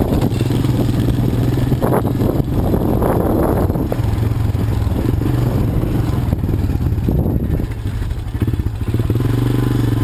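ATV engine running at a steady pitch, with bursts of noisy clatter about two to four seconds in and again around seven seconds in.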